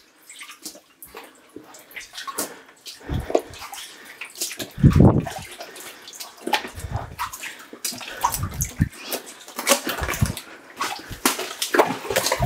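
Footsteps sloshing through shallow water on a mine floor: irregular splashes, each step with a low thud, about one every second or two, with water dripping.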